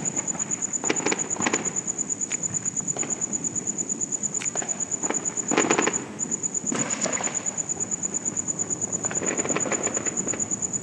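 Aerial fireworks going off: scattered bangs and pops, a quick cluster about halfway through and a run of crackling near the end. Under them runs a steady high-pitched pulsing chirp, about nine pulses a second.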